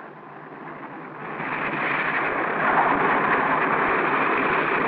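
Four radial piston engines and propellers of a Lockheed Constellation airliner running as it rolls along the runway toward the listener. The noise grows louder over the first two seconds, then holds steady.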